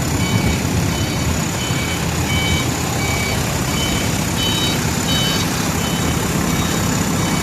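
Heavy diesel machinery running with its reversing alarm beeping in short repeated high tones, a little faster than one a second, pausing briefly about halfway through.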